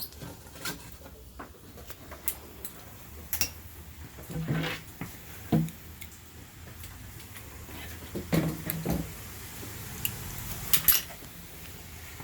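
Hand tools and metal engine parts clinking and clattering, with a few heavier knocks, as front accessories are unbolted from an LS V8 engine.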